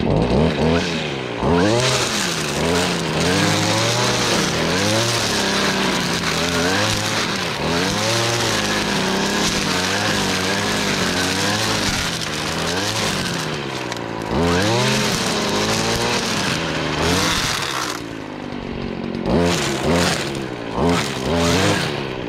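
Stihl FS 56 two-stroke string trimmer mowing grass, its engine rising and falling in pitch as the throttle is opened and eased over and over. Near the end it drops to a lower speed, then gives three quick throttle blips.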